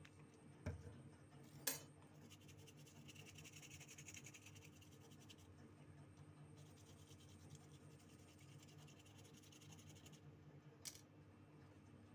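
Faint scratching and scrubbing as a phone's keypad is cleaned, with a few light clicks, one about a second in, one shortly after, and one near the end.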